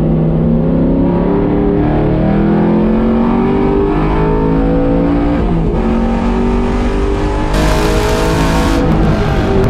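LS7 V8 of a 1971 Camaro accelerating hard, heard from inside the cabin: the engine note climbs steadily, drops sharply at an upshift about six seconds in, then climbs again. A burst of hiss lasting about a second comes near the end.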